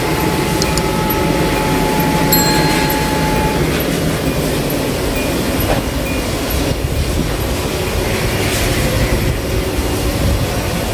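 Steady loud rumble of car-wash machinery, with a faint steady tone over the first few seconds.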